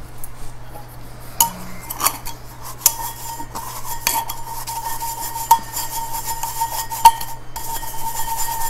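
Handheld metal mesh sieve shaken and tapped over a glass bowl while sifting flour and cocoa powder: a run of irregular light rattling taps. A faint steady tone joins from about three seconds in.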